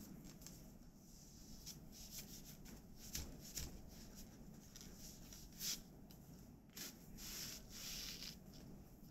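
Faint rustling and scraping of tree-bark fibre threads and wooden loom parts during hand weaving, with a few sharp taps in the middle and a longer rustle near the end.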